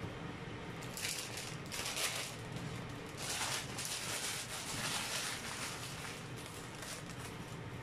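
Pot of chicken soup simmering on the stove: a crackly bubbling hiss that swells and fades unevenly, over a steady low hum.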